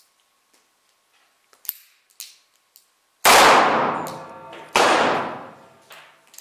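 Korth Sky Marshal 9 mm Luger revolver fired twice, about a second and a half apart, each shot ringing on in a long echo in a brick-vaulted range; a third shot comes right at the end. A few light clicks come before the first shot.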